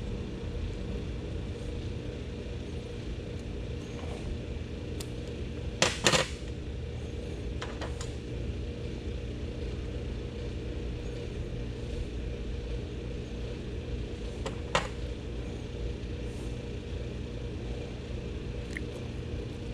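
A hand crimping tool squeezing ring terminals onto wire leads: a few sharp clicks and clacks of tool and metal, the loudest a quick double click about six seconds in. A steady low hum runs underneath.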